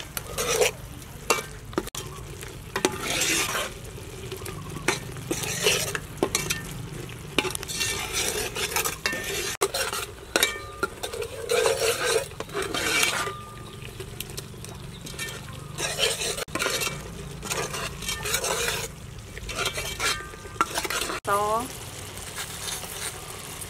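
Metal ladle stirring and scraping around an aluminium pot of thick, hot soup paste in repeated strokes, with the mixture sizzling on the heat.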